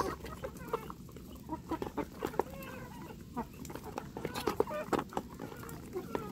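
Chickens, Muscovy ducks and a goose pecking rice-and-pellet feed from a plastic tub: many quick clicks and taps of bills on the feed and the plastic, with chickens clucking in short calls throughout.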